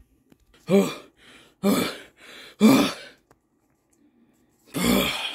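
A man's voice making short non-speech vocal sounds, like grunts or gasps: three about a second apart, then a longer one near the end.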